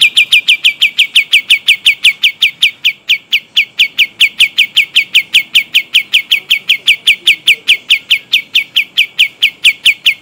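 Kapas tembak songbird singing a long rolling trill: a fast, very even run of identical downward-slurred whistled notes, about five a second, held without a break.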